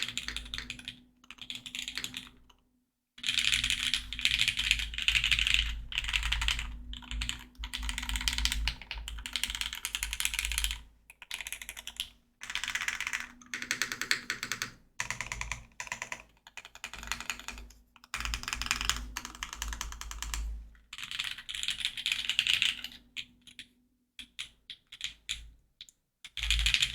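Fast typing on a Geonworks F2-84 mechanical keyboard with lubed Cherry Hyperglide MX Black linear switches on an aluminium plate and GMK Botanical keycaps. The keystrokes come in quick runs with short pauses between them, the longest about three seconds in and another near the end.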